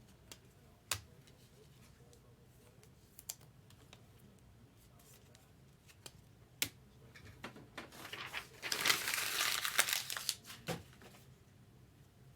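A few light clicks and taps of cards being handled, then about two seconds of crinkling and tearing as a foil Bowman Chrome trading-card pack is ripped open, starting about eight and a half seconds in.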